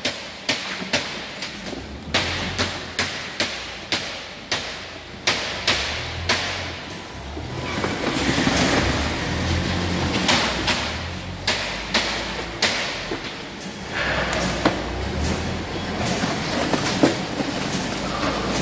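Packing-shed clatter from cartons and crates on a gravity roller conveyor: a quick run of clacks and knocks, about two a second, for the first several seconds, then a louder rushing noise with scattered knocks.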